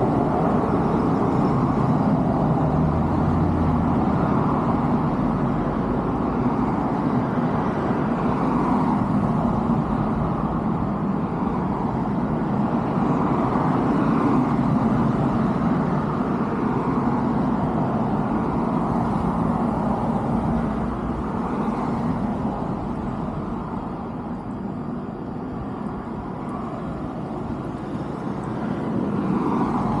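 Steady road-traffic noise, a continuous low rumble, easing a little about three-quarters of the way through and building again near the end.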